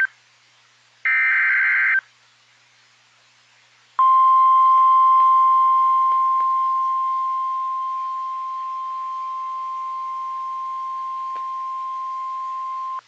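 NOAA Weather Radio alert signalling: a one-second burst of buzzy SAME digital header data, a pause, then the steady single-pitch 1050 Hz warning alarm tone starting about four seconds in and held for about nine seconds. It announces a new severe thunderstorm warning.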